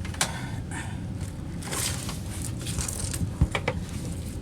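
Handling noise from plugging in the float switch's cord: scattered clicks and rustles, with a sharp knock about three and a half seconds in, over a steady low hum.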